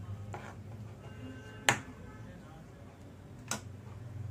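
Steel spoon knocking against a nonstick frying pan three times while stirring a thick vegetable mash; the middle knock, about halfway through, is the loudest.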